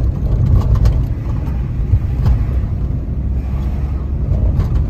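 Low, steady rumble of a car driving slowly along a street, heard from inside the cabin, with a few light clicks.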